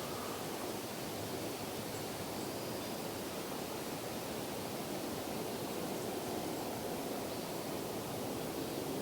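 Steady outdoor background noise, an even hiss with no distinct bird call or other event standing out.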